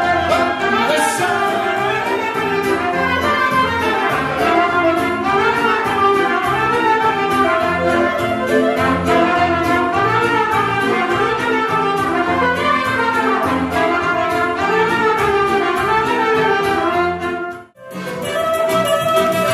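Live wedding band playing an instrumental dance tune with a steady beat and a busy, winding melody. Near the end the music cuts out for an instant and picks up again with a long held note.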